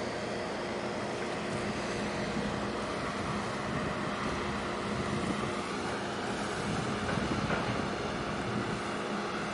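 Harbour ambience: a steady low drone of ship engines and machinery over a wash of wind noise on the microphone.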